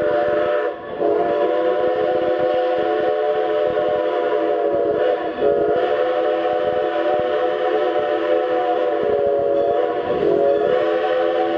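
Steam whistle of Strasburg Rail Road locomotive No. 90 blowing a loud, long chord of several tones, broken briefly about a second in, about five seconds in and about ten seconds in.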